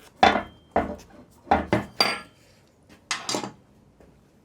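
Metal parts and hand tools clinking together, about seven sharp clinks with a short ring, some in quick pairs, stopping about three and a half seconds in.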